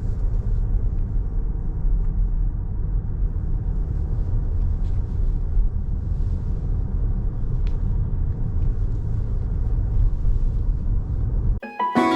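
A car driving, with a steady low rumble of road and engine noise. Just before the end it cuts abruptly to plucked-string music.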